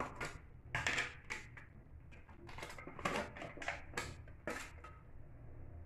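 A string of short plastic clicks and knocks as a plastic margarine tub and its lid are handled, opened and set down on a stone counter, tapering off after about five seconds.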